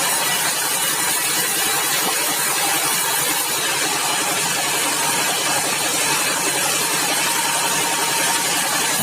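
Sawmill machinery running steadily, a continuous loud mechanical noise with no break.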